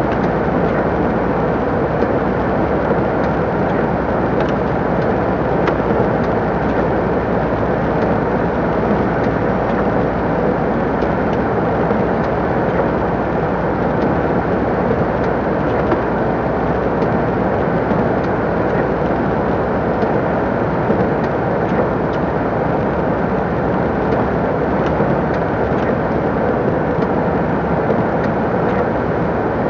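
MAN TGS 26.320 lorry's diesel engine and tyres at a steady cruise, an even, unchanging drone of engine and road noise.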